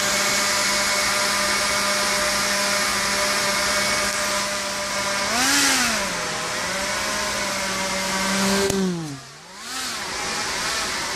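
The Quanser 3-DOF helicopter's two motor-driven propellers whine steadily, then speed up and slow down again about halfway through as the controller changes thrust to hold the craft against disturbances. Near the end a sharp click is followed by a steep drop in the motors' pitch and loudness, which then climbs back.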